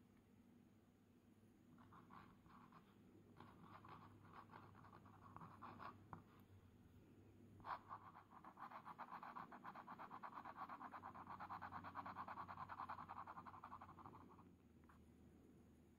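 Glass pen nib scratching on a paper swatch card: short stretches of handwriting strokes, a sharp tick about eight seconds in, then about six seconds of steady, rapid back-and-forth scratching as the nib shades in a swatch, stopping near the end.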